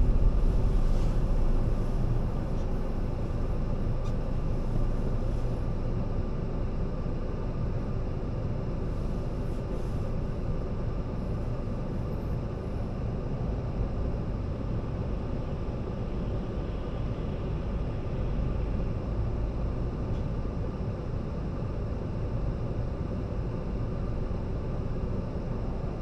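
A car being driven: a steady low rumble of road and engine noise, somewhat louder for the first couple of seconds before settling to an even level.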